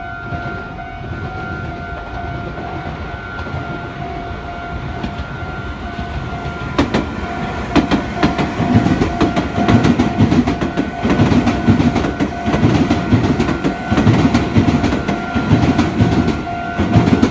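Meitetsu 2200 series electric train passing close by, its wheels clattering over rail joints and points in a quick rhythm from about eight seconds in. A level-crossing alarm rings steadily throughout.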